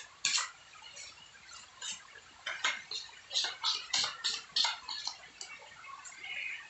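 Short, sharp scrapes and clicks of a metal putty knife working wall putty, a few each second at an uneven pace.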